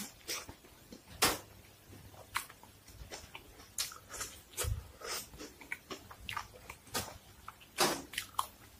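A person biting into and chewing a lettuce and toast sandwich: irregular sharp mouth clicks, smacks and crunches.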